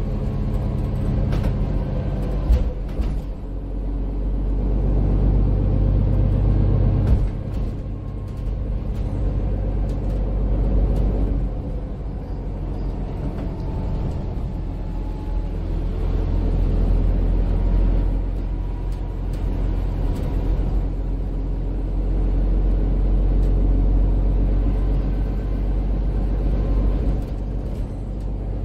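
Low engine and road rumble heard inside a MAN Lion's City 12C EfficientHybrid city bus on the move. The rumble swells several times as the bus accelerates, under a faint drivetrain whine that shifts in pitch. A couple of sharp knocks come from the body, one early and one about a quarter of the way through.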